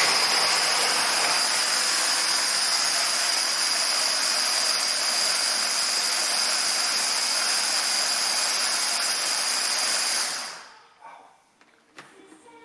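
Electric hand blender on its chopper bowl running steadily, a high whine over a whirring rush, as it blends pistachios and cream into a sauce; it winds down and stops about ten and a half seconds in.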